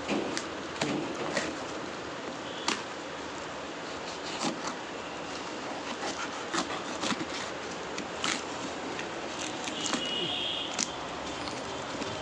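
Cardboard shipping box and its packing tape being torn open by hand: irregular sharp rips and crackles over a steady background hiss.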